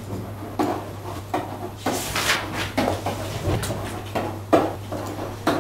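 Pen taps and scrapes on an interactive whiteboard as words are handwritten: irregular short knocks about one or two a second, one longer scratchy stroke about two seconds in. A steady low hum runs underneath.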